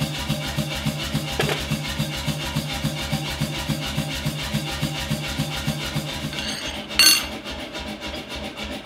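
Background music with a steady beat. About seven seconds in comes a single sharp clank of steel with a bright ring, as a steel drift is set down on the anvil.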